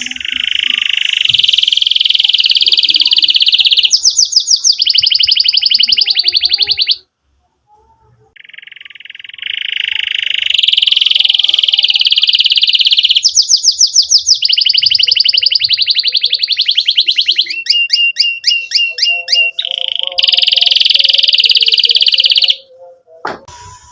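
Domestic canary singing loudly in long, high rolls and rapid trills, breaking off for about a second and a half roughly a third of the way in, then resuming and cutting off suddenly near the end.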